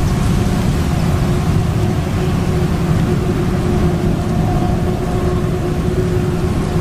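Forage harvester chopping maize while tractors run alongside: a steady, heavy machinery drone with a constant tone held over it.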